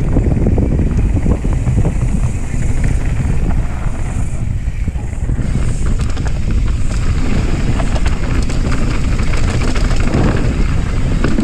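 Wind buffeting an action camera's microphone as a mountain bike rides fast down a dirt trail, with tyres rumbling over the dirt and the bike rattling over bumps in many small knocks.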